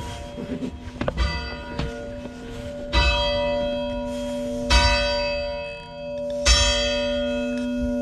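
Church tower bell striking the hour, heard close up in the bell tower: about four strikes roughly 1.8 seconds apart, the first weaker, each ringing on into the next with a steady hum underneath. It is tolling nine o'clock.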